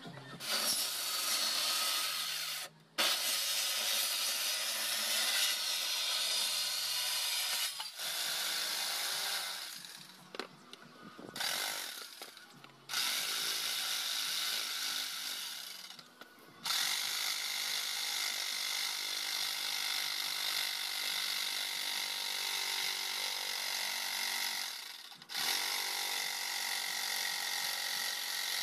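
Electric jigsaw cutting through a plywood board, a loud, dense buzzing rasp. It runs in long stretches and stops briefly several times before starting again.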